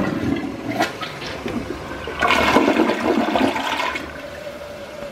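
An American Standard dual-flush toilet giving a full flush: a click as the button is pressed, then rushing, swirling water in the bowl that grows loudest about two seconds in and eases to a quieter steady hiss near the end.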